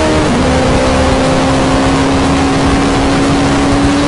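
Turbocharged Suzuki Hayabusa inline-four with an aftermarket GSX-R exhaust, running at high revs on a highway run, with wind rushing past. The engine note drops briefly just after the start, then holds a steady pitch.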